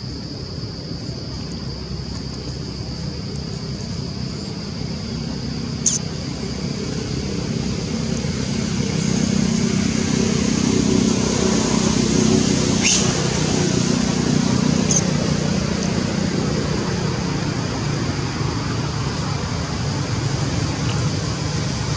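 Outdoor background noise: a steady high hum over a low rumble that grows louder around the middle and then eases off, with a few short sharp clicks or squeaks.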